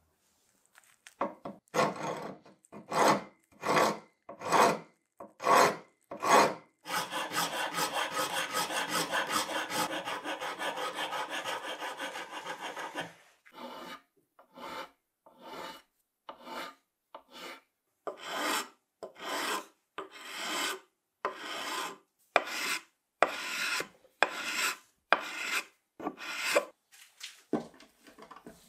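Abrasive strokes worked by hand over wood. Slow single strokes about one a second, then a quick run of short back-and-forth strokes for about six seconds, then slower single strokes again.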